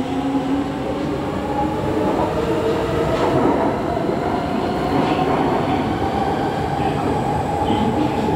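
SMRT C151C metro train pulling out of the station past the platform: its traction motors whine, rising in pitch over the first few seconds and then holding steady, over steady wheel and rail rumble.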